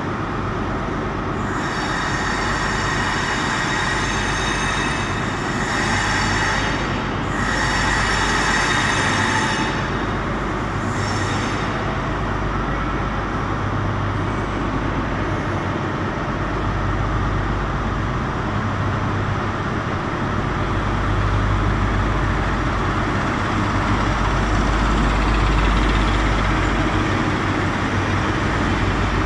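InterCity 125 HST running slowly into the platform. A high squeal of many tones from the arriving train lasts for about the first ten seconds, then the rumble of the leading Class 43 power car's MTU diesel engine grows louder as it draws past, loudest a few seconds before the end.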